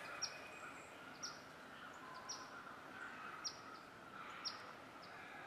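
A bird calling a short, high chip that falls in pitch, about once a second, over faint woodland background.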